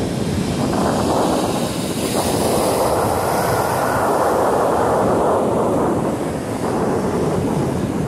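Rough storm surf breaking and washing into a rocky cove, with wind buffeting the microphone. The rush of water swells a couple of seconds in and eases off again.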